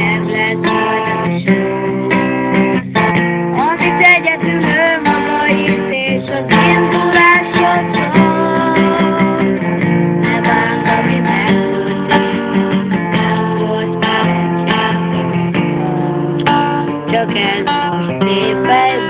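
Steel-string acoustic guitar strummed as accompaniment while a young boy sings the melody over it.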